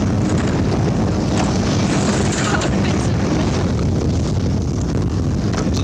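Helicopter hovering close by: its steady rotor and engine noise, mixed with wind buffeting the microphone.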